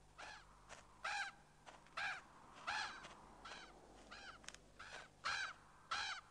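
Crow cawing over and over, about ten short caws spaced roughly half a second to a second apart.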